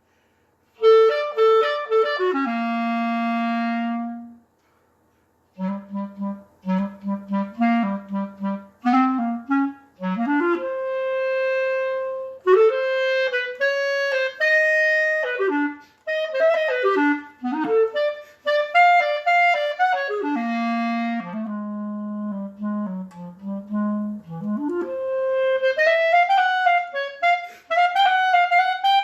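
Unaccompanied clarinet. It falls quickly to a long held low note and pauses briefly about four seconds in. Then come repeated short low notes, wide leaps between low and high registers, held notes and quick runs.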